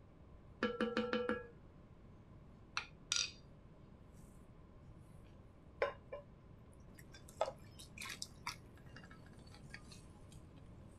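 Wooden spoon tapped rapidly on the rim of an enamelled Dutch oven, a short ringing rattle, then scattered knocks, clinks and soft scraping as the pot is tipped and the cheesy sliced potatoes slide out into a ceramic baking dish.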